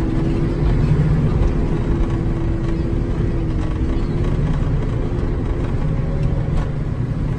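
Engine and road noise inside the cab of a 33-foot Class C motorhome driving along: a steady low rumble with a humming tone that wavers slightly.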